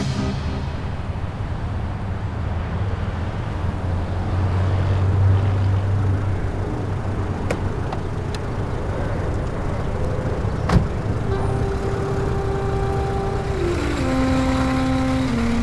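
City street traffic: a car drives past, its engine and tyre rumble swelling about four to six seconds in, with a few sharp clicks along the way. From about eleven seconds in, background music with long held notes stepping down in pitch comes in over the traffic.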